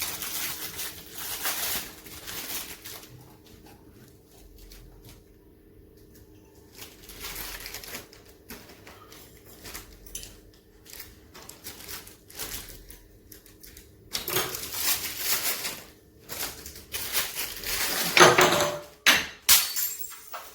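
Handling noise as price tags are removed from candles: rustling and scraping with scattered light clicks and knocks, the loudest bursts of rustling coming about two-thirds of the way through and near the end.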